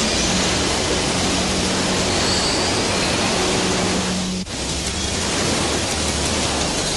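Cartoon whirlpool sound effect: a steady rushing of churning water with a low hum beneath. It drops out for an instant about four and a half seconds in and then comes back.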